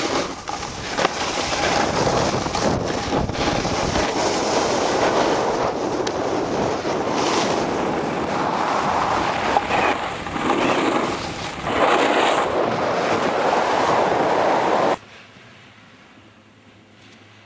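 Wind buffeting the camera microphone, a loud, uneven rushing noise that cuts off suddenly near the end and leaves only a faint hiss.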